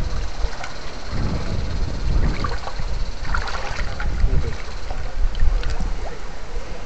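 Water sloshing and rippling as two electrofishing probe poles are moved through a shallow stream pool, under a heavy low rumble of wind and handling on the microphone.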